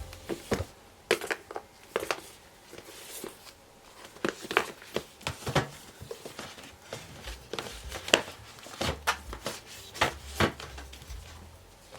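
Planner supplies being handled and put into a metal storage trolley: packets crinkling, with irregular clicks and knocks as items are set down and shifted.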